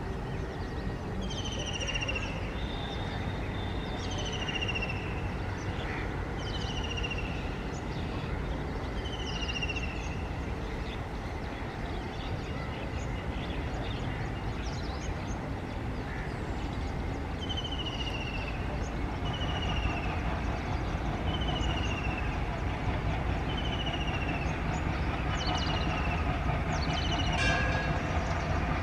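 WDP-3A diesel-electric locomotive running slowly with its train, a steady low engine rumble that grows louder over the last third as it draws closer. A bird repeats a short falling whistle about every two seconds.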